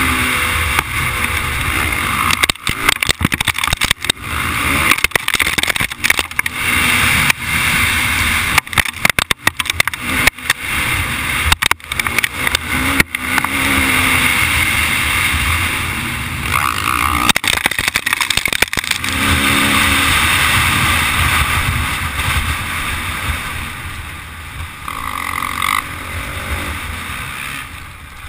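Motocross dirt bike engine heard from a camera mounted on the bike, revving up and falling off again and again as it is ridden around the track. Frequent short knocks and breaks cut through the engine sound.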